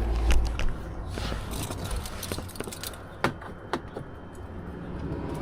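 Handling noises at a car door as the power window is about to be tested: rustling and light rattling, with two sharp clicks about three seconds in.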